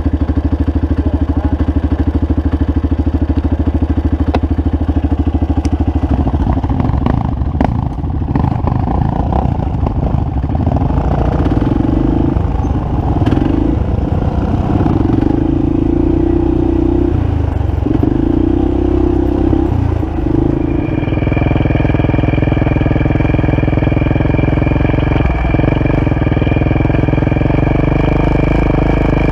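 Single-cylinder ATV engine idling steadily. From about six seconds in it runs rougher, with a few knocks and the engine speed surging up and down in repeated bursts. Near twenty seconds in it settles back to a steady idle.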